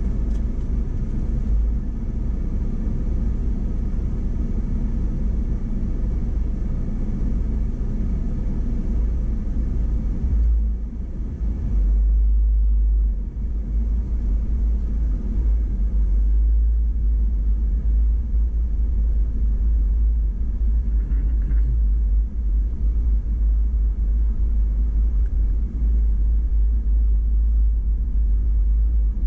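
Steady low rumble of an off-road vehicle driving slowly along a dirt trail, with a brief dip about eleven seconds in.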